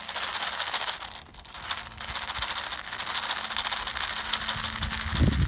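Dry cat kibble rattling in a plastic tub as it is shaken and carried, a dense crackling rattle throughout, with a low handling bump about five seconds in.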